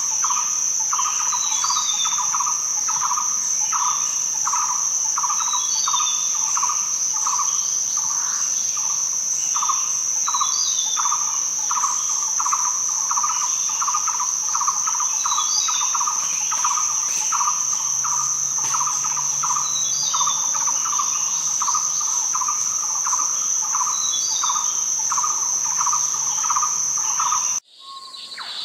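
Nature ambience of insects: a steady high-pitched cricket trill with a lower chirping call pulsing about three times a second, and a short bird call every four to five seconds. It cuts off abruptly about a second before the end, and a different clip begins.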